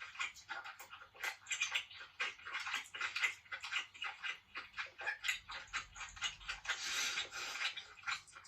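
Close-miked mukbang eating sounds: rapid, irregular wet clicks and smacks of someone chewing lobster.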